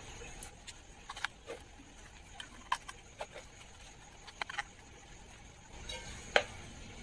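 Faint, irregular small clicks and light taps as a replacement voice coil is seated into the magnet gap of a 15-inch speaker and the speaker basket is handled, about a dozen in all, with one of the sharper ones near the end.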